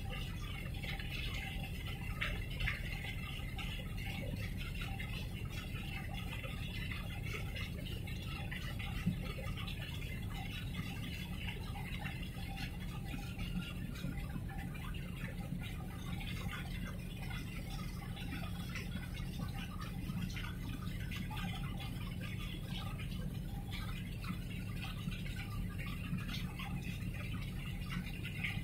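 Harbour water lapping and splashing close by, with a fine steady crackle over a constant low rumble.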